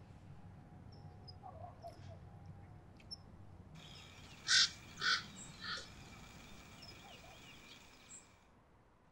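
A bird, most like a crow, calls three times in quick succession about halfway through. The calls are harsh, about half a second apart, and each is quieter than the last, over faint outdoor ambience with a few tiny chirps.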